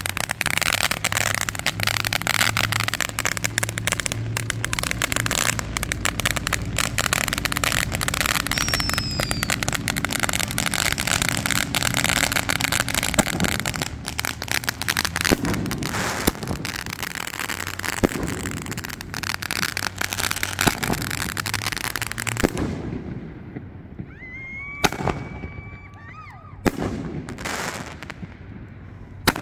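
Fireworks going off: a dense, continuous crackle of many small bursts for most of the time, thinning about three quarters of the way through to a few separate loud bangs.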